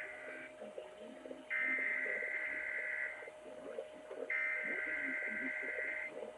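Emergency Alert System SAME header tones over broadcast radio: the end of one burst of buzzy two-tone digital data, then two more bursts, each about two seconds long with about a second's gap between them. The header carries the Required Monthly Test alert code ahead of the attention tone.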